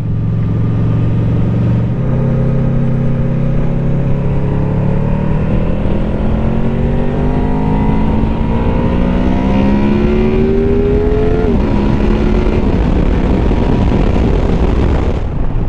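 Honda VFR800F's V4 engine pulling hard under acceleration, its pitch climbing steadily for several seconds and dropping sharply about eleven seconds in at an upshift before pulling again.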